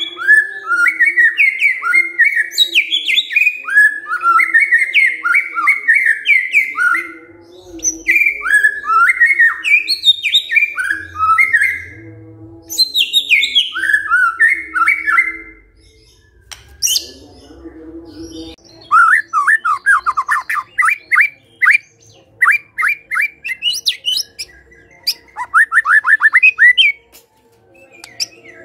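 White-rumped shama singing: loud phrases of rapid, varied sliding whistles and chatter broken by short pauses, and in the second half fast runs of sharp, quickly repeated notes.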